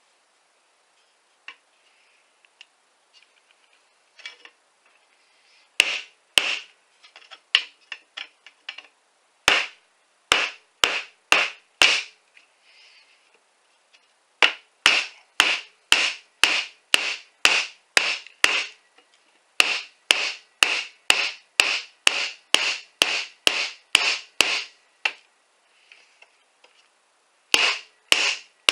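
Sharp repeated strikes as a folding knife is driven through a clamped sheet of 1/16-inch aluminum into the wooden board beneath. The strikes start scattered, settle into a steady run of about two a second, pause briefly, and resume near the end.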